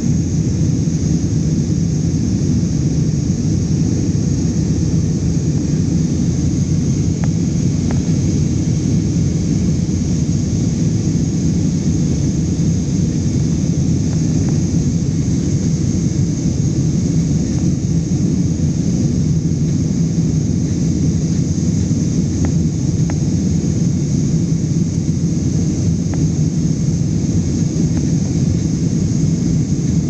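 Airliner cabin noise during the climb: a steady low rumble of the engines and rushing air, with a thin high whine above it.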